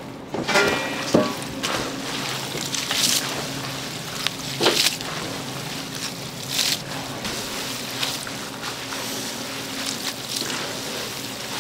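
Kitchen work sounds: scattered clatter and handling noises, a few sharp clicks among them, over a steady low hum.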